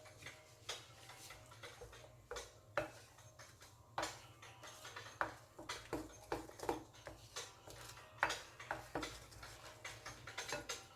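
A spoon stirring cake batter in a bowl, with irregular clinks and taps against the bowl's sides, over background music.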